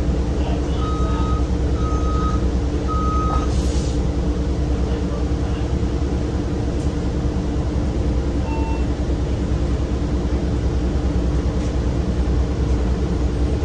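Cummins Westport ISL G natural-gas engine of a 2008 Orion VII NG bus running with a steady low drone, heard from inside the cabin. Over it a warning beeper gives three short beeps about once a second in the first few seconds, followed by a brief hiss of air.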